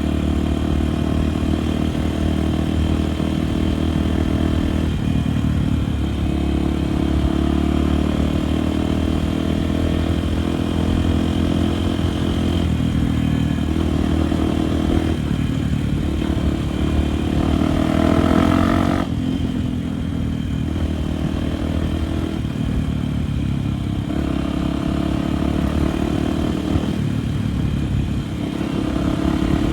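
Honda Tornado dirt bike's single-cylinder engine running under throttle through mud, its pitch shifting with the revs. A little before two-thirds of the way in, the revs climb, then fall away suddenly as the throttle closes.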